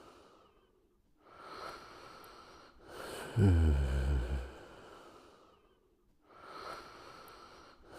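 Cartoon character snoring in a slow repeating cycle: one loud, low snore that falls in pitch about three and a half seconds in, between softer airy breaths around one and a half and seven seconds in.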